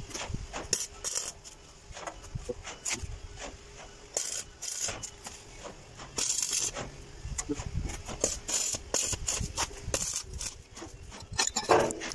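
Metalwork on steel stair treads: clicks and clanks of a clamp and tools against the steel, with several short hissing bursts about half a second long.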